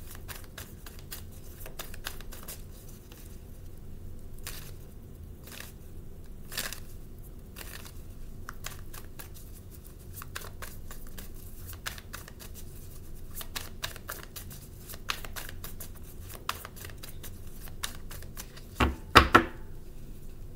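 A deck of tarot cards being shuffled by hand: a long run of irregular soft flicks and clicks, with two louder knocks about nineteen seconds in, over a low steady room hum.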